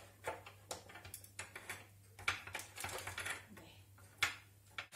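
Scallop shells clicking and tapping as they are set down and shifted on a baking tray: a run of irregular light clicks, with a couple of sharper knocks.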